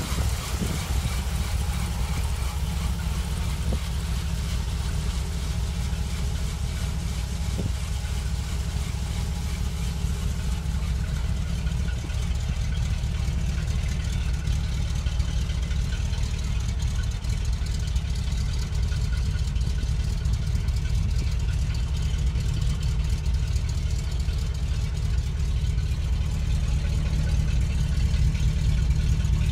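Chevrolet 366 gas V8 of a 1986 C6500 flatbed truck idling steadily with a low, even hum.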